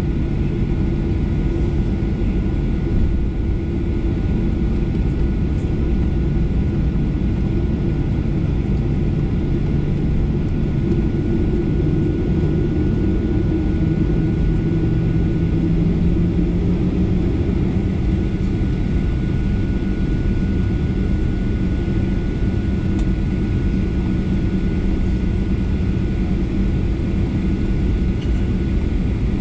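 Cabin noise of a Boeing 737-800 taxiing, heard from a window seat over the wing: a steady rumble from its CFM56 engines and rolling gear, with a steady hum that steps up slightly in pitch about halfway through.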